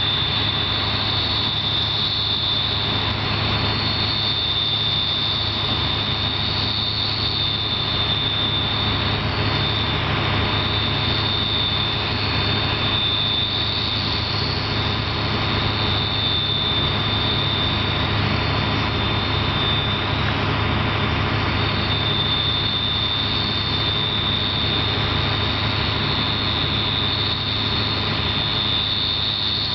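Combine harvester running steadily while harvesting corn: a constant low engine drone with a steady high-pitched whine over it.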